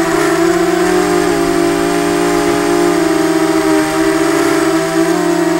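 Eachine Falcon 250 quadcopter's motors and propellers whining in flight, picked up by the onboard camera: a steady hum of several close tones over a rush of air, shifting a little in pitch now and then as the throttle changes.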